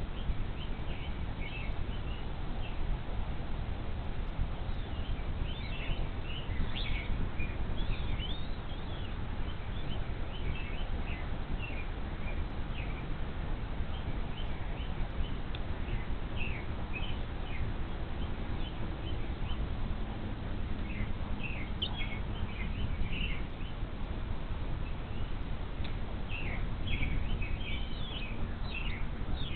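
Short, high, thin bird chirps come in scattered clusters over a steady low rumble of wind or background noise.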